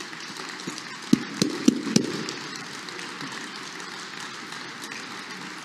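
Steady hum of a large sports hall, with four sharp knocks about a third of a second apart between one and two seconds in.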